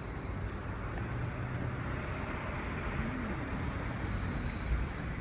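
Steady outdoor background rumble with a low hum, and a faint high thin tone coming in near the end.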